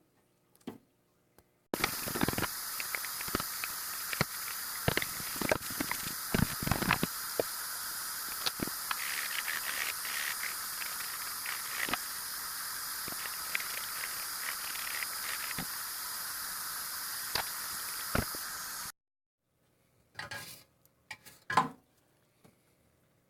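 A steady spray hiss lasting about seventeen seconds, starting and cutting off abruptly, with scattered clicks and knocks through it; a few short knocks follow near the end.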